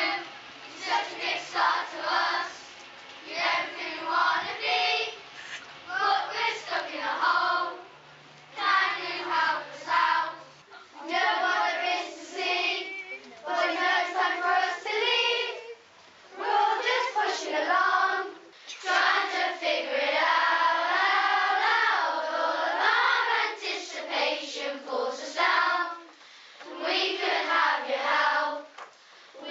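Children's choir singing a song in unison, phrase after phrase with short breaks between lines.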